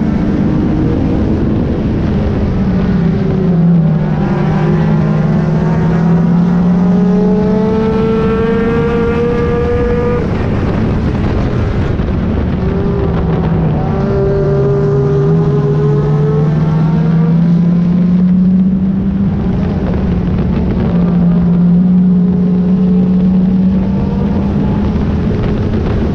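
Onboard sound of an oval-track race car: its engine climbs steadily in pitch along the straights and falls back as it eases into the turns, twice over and starting a third, under constant wind and road noise on the hood-mounted microphone.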